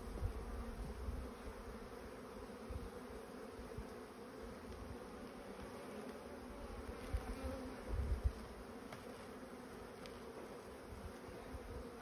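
Honeybees from a strong, populous colony, mostly workers, buzzing steadily around an open hive: a constant hum, with a couple of brief low rumbles near the start and about eight seconds in.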